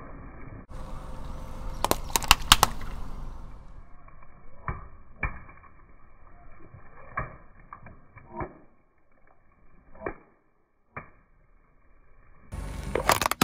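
Car tyre rolling over water-filled balloons on wet pavement, the balloons bursting with sharp pops and splashes: a quick cluster of loud pops about two seconds in, then scattered single pops. In the last second, hard plastic starts cracking and breaking under the wheel.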